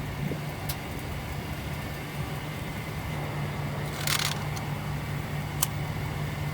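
A steady engine-like hum, with a few sharp clicks and a short burst of noise about four seconds in.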